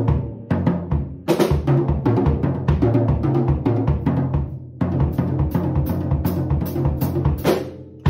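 Yamaha birch drum kit, with 10, 12, 13 and 14 inch toms, played in a fast, busy pattern. Tom, snare and bass drum strikes follow one another without a break.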